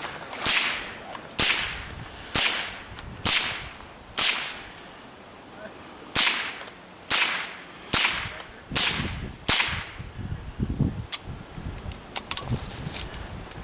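.22 LR rifle shots, about ten sharp cracks fired roughly one a second in two strings of five with a pause of about two seconds between them, followed by a few fainter clicks.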